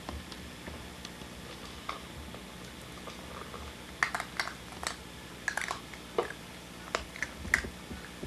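Small poodle puppy eating food off the floor, with irregular sharp clicks and crunches of chewing that come thicker from about halfway in.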